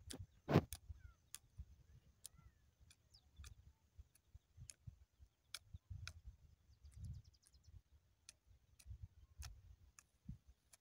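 Faint outdoor ambience: low, uneven wind rumble on the microphone, with sharp clicks scattered about once a second and a few faint high chirps.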